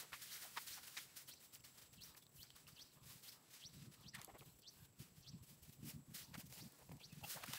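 Near silence, with faint scattered clicks and rustles from a bundle of wet rice seedlings being handled in the mud.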